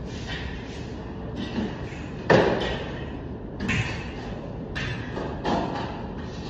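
Three knocks and thuds from ceiling plastering work on a rolling scaffold, the loudest about two seconds in, each echoing briefly in a large hard-walled hall over a steady background hiss.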